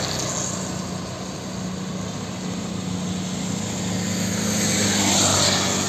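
Road traffic on a wet street: a steady engine hum with tyre noise, swelling as a vehicle passes close near the end and then easing.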